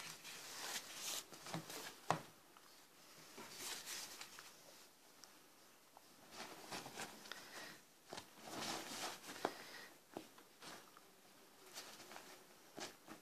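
Soft, intermittent rustling and scuffling of a wire fox terrier mouthing and tugging a fabric-and-rubber toy on a duvet, with bedding rustling under its paws and a few small clicks.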